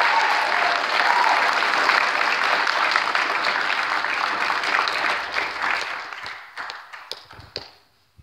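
Audience applauding, steady at first, then thinning out about six seconds in to a few last scattered claps.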